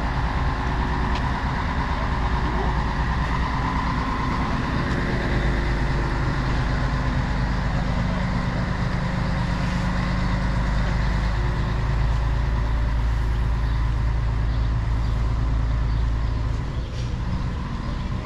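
A large motor vehicle's engine running close by, a steady low hum over street traffic noise, easing off about sixteen seconds in.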